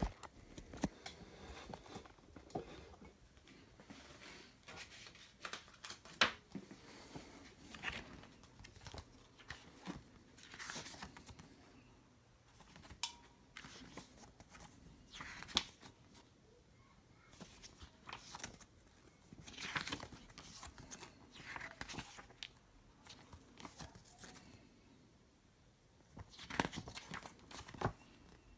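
Irregular clicks, knocks and rustling, as of objects being handled, with no motor running.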